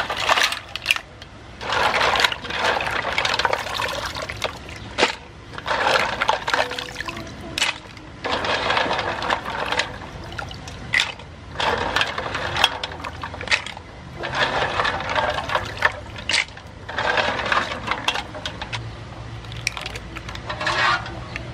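Green-lipped mussels being washed by hand in a metal basin of water: repeated splashing and sloshing every couple of seconds, with shells clacking together and water pouring off as handfuls are lifted out.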